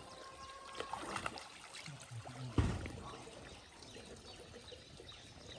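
Shallow, muddy water trickling and splashing as a cast net is hauled through it, with scattered small splashes and one sudden thump about halfway through.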